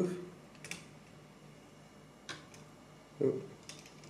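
A few light clicks and taps of hard Lego plastic pieces being handled, as a small Lego helmet is fitted onto a Lego scooter's handlebar.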